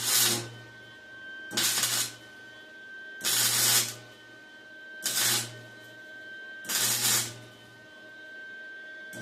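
Short bursts of welding, about half a second each, with a crackling sizzle and a low hum during each burst; six bursts come one and a half to two seconds apart.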